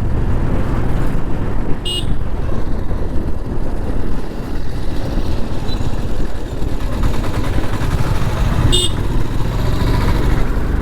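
Motorcycle on the move: steady engine and wind rumble on a helmet or bike-mounted mic, with two short vehicle horn toots, about two seconds in and near the end.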